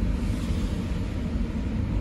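Tram running along a street, heard from inside the passenger car: a steady low rumble with a fainter hiss over it.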